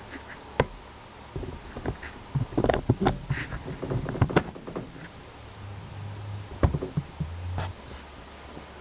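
Greasing a riding mower's front wheel bushings through their grease fittings with a hand grease gun: sharp clicks and knocks of the gun and parts being handled, with a busy run of clicks and scrapes in the middle.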